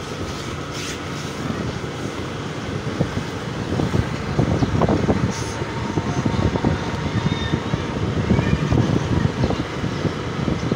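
Motor scooter running steadily along a road, heard from the rider's seat, with wind buffeting the microphone in irregular gusts.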